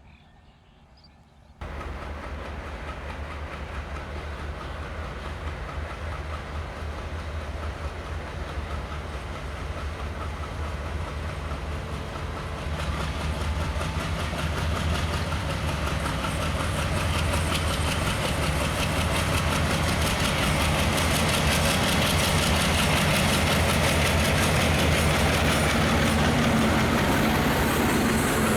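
Passenger train with a diesel locomotive running on the line, its engine hum and the rumble of wheels on rails cutting in suddenly after a second and a half, then growing steadily louder as it approaches.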